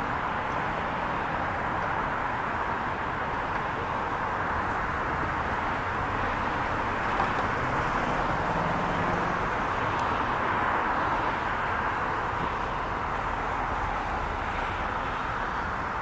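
Steady outdoor hum of distant road traffic, an even, unbroken background noise.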